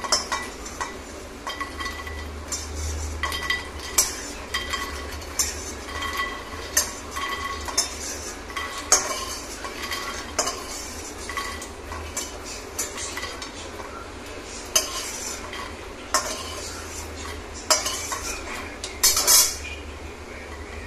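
Metal spatula scraping and knocking in a metal kadai as dry-roasted makhana (fox nuts) are scooped out, in irregular strokes with a louder scrape near the end.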